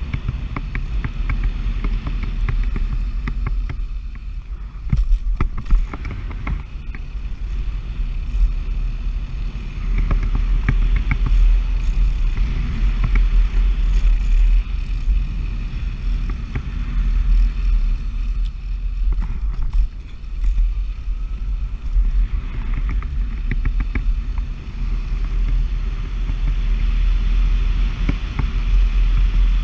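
Riding noise from a Nanrobot Lightning electric scooter at speed: a steady low rumble of wind buffeting the microphone, with scattered clicks and rattles as its solid tyres run over the pavement.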